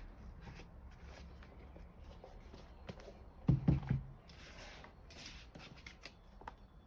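Light handling sounds of small objects on a work surface: scattered clicks, taps and scrapes, with a short cluster of heavier, deeper knocks about halfway through.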